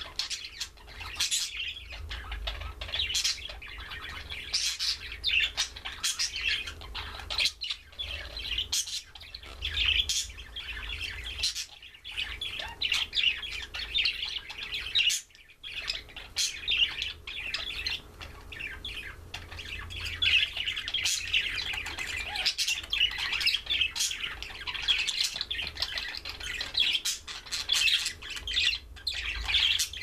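Budgerigars chirping and chattering continuously in quick, high twittering calls, with a brief pause about halfway through.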